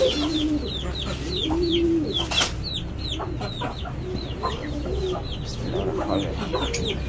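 Chickens clucking, over a steady run of short, high, falling chirps several times a second. A brief sharp rustle about two and a half seconds in.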